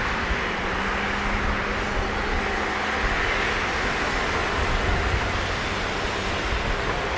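Airbus A330-300's Rolls-Royce Trent 700 jet engines running at low taxi power as the airliner rolls slowly along: a steady rushing hum over a low, fluctuating rumble.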